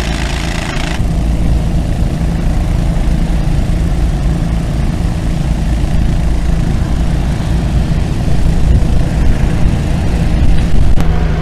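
Heavy machinery engine running steadily with a low, loud drone. A hissing noise cuts off suddenly about a second in.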